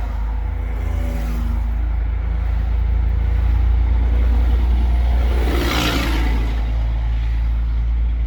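Steady low rumble of road traffic heard from a car stopped at the roadside. About five to six seconds in, a passing vehicle's rush swells and fades.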